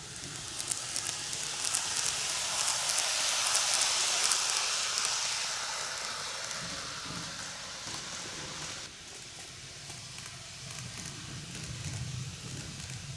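N-gauge model electric train (Greenmax Keio 1000 series, five cars) running on the track: a hissing rush of wheels on rail with quick rail-joint clicks and a faint motor hum. It grows as the train passes close, loudest about four seconds in, then falls away.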